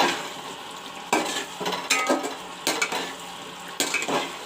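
Chicken and masala frying in hot mustard oil with a steady sizzle, while a spoon stirs and scrapes the pan in about five strokes roughly a second apart. The masala is being fried until it turns brown.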